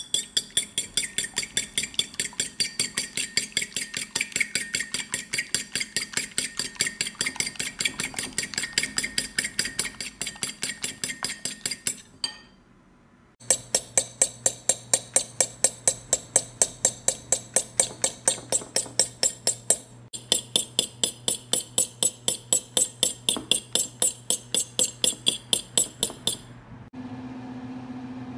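Metal fork beating egg whites by hand in a ceramic bowl: a rapid, even run of clinks as the fork strikes the bowl, pausing briefly twice. Near the end the clinking stops and a steady low hum remains.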